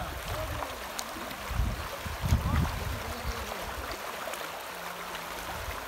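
Floodwater rushing and splashing as it pours across a submerged road, with people wading through it; a louder low rumble comes about two seconds in.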